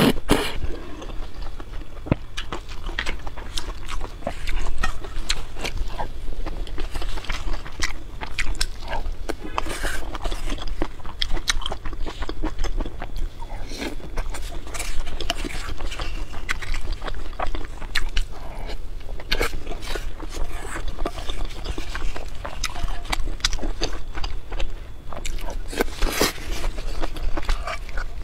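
Close-miked eating: steady chewing and biting with many wet mouth clicks and small crunches, with a louder slurp right at the start.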